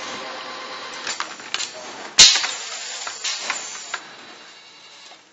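Pneumatic clamps and cylinders of an automatic wire-harness tape-wrapping machine clicking and clacking as they actuate, with one loud sharp clack about two seconds in followed by a brief hiss. The clicks die away after about four seconds.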